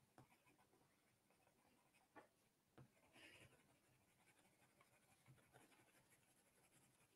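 Very faint scratching of a watercolour pencil shading on drawing paper, in short scattered strokes.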